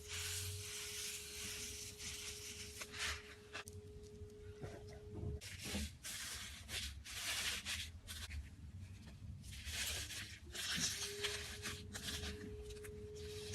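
Slime being squeezed and stretched by hand, making irregular soft rubbing and tearing sounds. A faint steady hum runs under it for about the first five seconds and again from about eleven seconds in.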